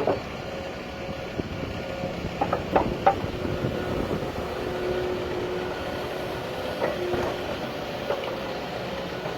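Heavy forestry machinery running steadily, with a faint held whine and a few short knocks about a third of the way in and again about three quarters of the way through.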